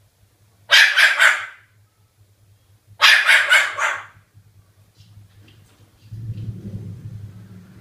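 Cockatoo mimicking a dog's bark: two harsh bouts of several quick barks each, about two seconds apart. A low hum comes up in the last couple of seconds.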